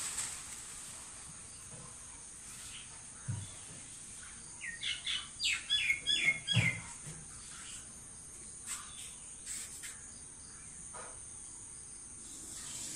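A bird gives a quick run of about ten short, high chirps in the middle, with a few fainter chirps later, over a steady high-pitched insect drone. Two soft low thumps come a little before and during the chirping.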